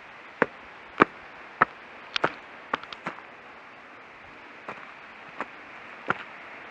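Footsteps on a gravel and stone path: sharp, short steps about every half second, with a pause of a second or so in the middle, over a faint steady hiss.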